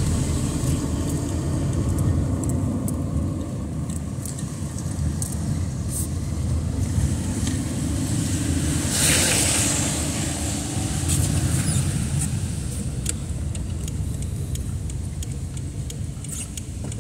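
Car cabin on a drive over wet streets: steady engine and tyre rumble. About nine seconds in, a brief rush of tyre hiss and spray as an oncoming pickup passes on the wet road.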